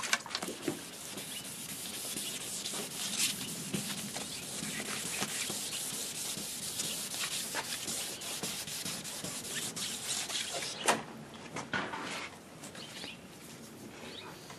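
Plastic headlight lens being wet-sanded by hand with 1500-grit wet/dry sandpaper on a sponge: steady back-and-forth scrubbing strokes. A sharp click about eleven seconds in, and the scrubbing grows quieter near the end.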